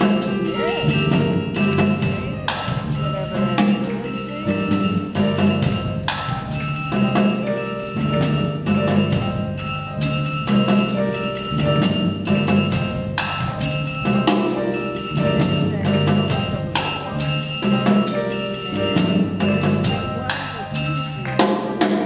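Live improvised music: a run of changing low notes with irregular percussion strikes over it.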